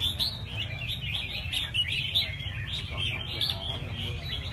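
Many caged red-whiskered bulbuls singing at once, their chirping phrases overlapping without a break, over a steady low rumble.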